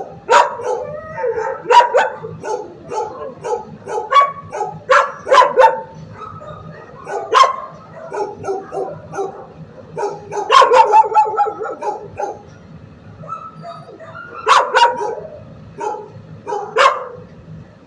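Dogs barking repeatedly in a kennel block, sharp barks coming in irregular bursts, with a short lull about two-thirds of the way through.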